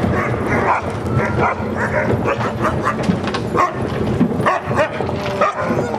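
A yard full of sled dogs barking, yipping and whining together in an excited chorus, many overlapping short calls with no let-up.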